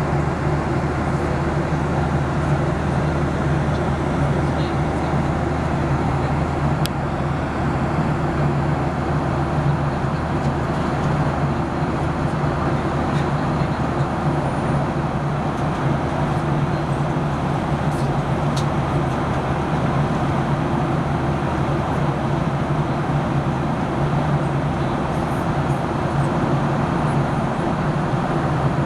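Steady cabin noise of a Boeing 737-800 in flight: an even rush of airflow and engine drone with a low hum, unchanging throughout, with a couple of faint clicks.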